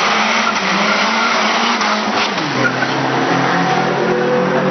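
Two race cars passing close at speed with their engines revving hard. The first car's engine note drops a little past halfway as it goes by, and a second engine note then rises as the next car accelerates.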